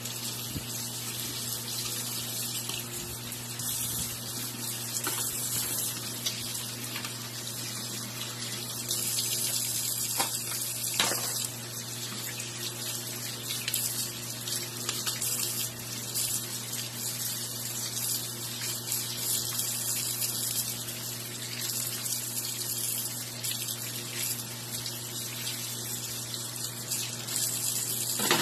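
Tap water running steadily into a sink while crab shells are scrubbed with a brush under the stream, over a constant low hum.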